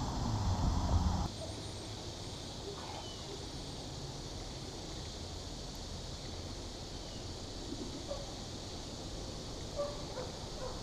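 Quiet outdoor ambience with a steady high hiss and a few faint bird chirps. Wind rumbling on the microphone stops abruptly about a second in.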